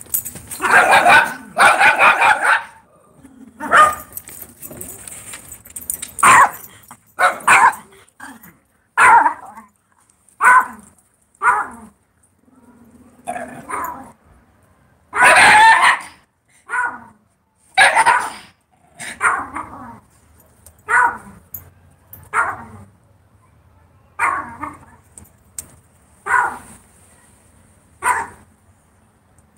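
Dog barking repeatedly in short, loud barks about every one to two seconds, with a longer run of barks near the start and another about halfway through.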